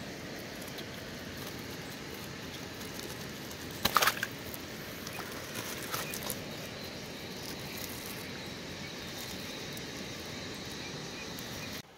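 A wet cloth bag is lifted from shallow water and handled close to the microphone: rustling and splashing, with a short, loud burst of crackling about four seconds in and a few smaller ones a couple of seconds later, over a steady background hiss.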